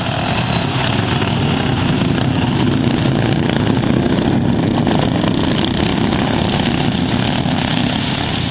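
Racing lawn mower engine noise, a loud, steady drone of mower engines running hard around the track.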